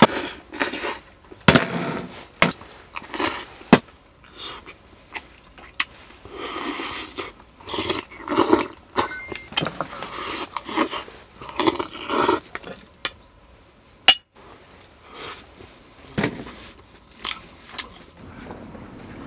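A person eating with chopsticks and a spoon from metal camp bowls: repeated short clinks of utensils against the bowls, with longer soft stretches of eating sounds in between.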